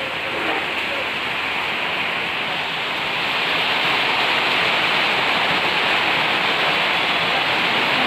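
A loud, steady rush of water, growing a little louder about three seconds in.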